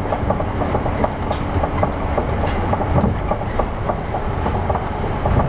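Osaka New Tram 200-series rubber-tyred automated guideway train running between stations, heard inside the car: a steady rumble with frequent small clicks and knocks.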